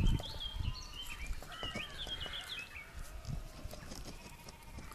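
Animal calls, a run of short, high, wavering calls that thin out after the first few seconds, with a few faint knocks from a knife working a gutted pollack on a wooden chopping board.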